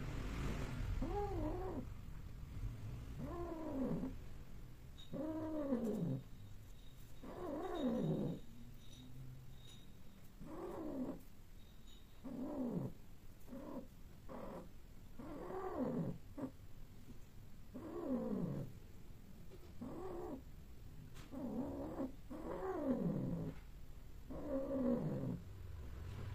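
Persian cats yowling during mating, the male mounted on the female in heat. A long series of drawn-out calls comes every second or two, each rising and then falling in pitch.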